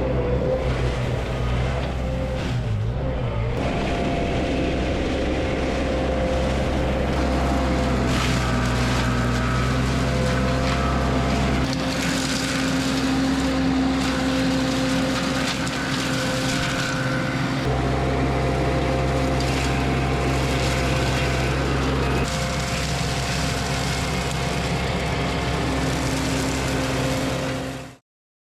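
Mini skid steer engine running under load with the hydraulically driven mulcher rotor spinning, a steady machine sound. Its pitch and tone shift abruptly a few times. It cuts off suddenly just before the end.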